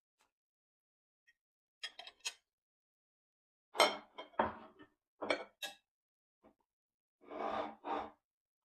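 Ceramic plates, a small bowl and a metal fork handled on a table: a handful of separate clinks and knocks, some with a dull thud as a plate is set down.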